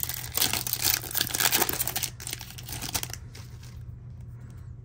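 Foil wrapper of a Topps Chrome baseball card pack crinkling as it is torn open, dying away about three seconds in.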